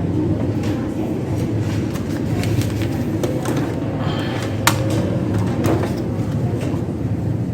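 A steady low rumble of background noise, over which come scattered light clicks and taps from printer parts being handled, with one sharper click a little past halfway.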